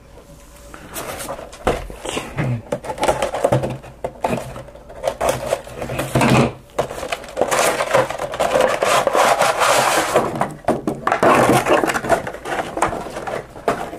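Hands opening a cardboard action-figure box and sliding out its clear plastic tray: rustling, scraping and crinkling of cardboard and plastic with many small clicks, starting about a second in.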